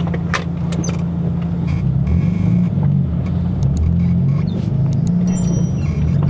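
Honda K24A 2.4-litre inline-four running at a steady low speed through a straight-pipe stainless steel exhaust, a steady low hum. A few light clicks, and a short high squeak near the end.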